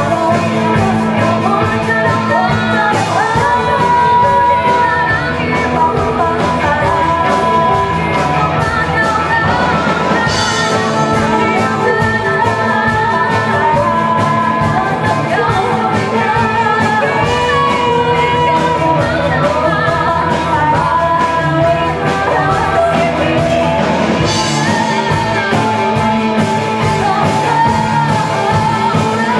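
Live ensemble music blending Minangkabau traditional instruments, including talempong gong-chimes and gandang drum, with electric guitar, bass, keyboard and drum kit, under a sung vocal melody. It plays steadily and loud.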